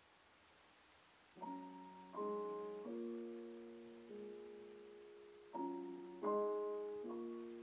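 Soft piano music: after a near-silent start, notes and chords come in about a second and a half in, each struck and left to ring and fade, in an unhurried melody.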